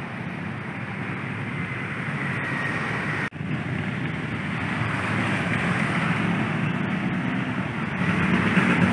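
Steady outdoor road-traffic noise from vehicles passing on the street, with a brief dropout about three seconds in. It grows louder near the end.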